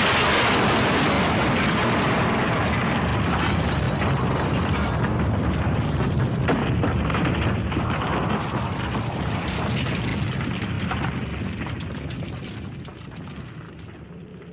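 Cartoon explosion sound effect: a long, loud blast with scattered crackles of flying rock, holding steady for several seconds and then dying away over the last few seconds.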